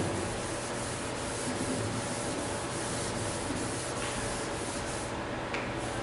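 Board duster rubbed back and forth across a chalkboard, erasing chalk writing in repeated scrubbing strokes that stop about five seconds in.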